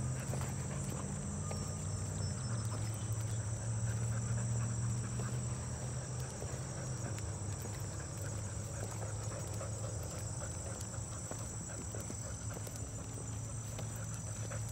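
Insects chirring in a steady high chorus over a steady low hum, with footsteps on a paved path.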